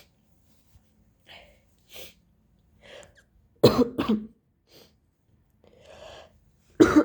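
A woman with a cold coughing: two loud fits, each of two coughs in quick succession, about three seconds apart, with short quiet breaths in between.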